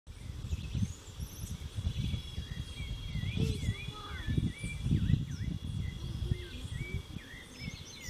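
Small birds chirping, with many short repeated dipping chirps and a few higher notes, over a steady high insect buzz and a low rumble.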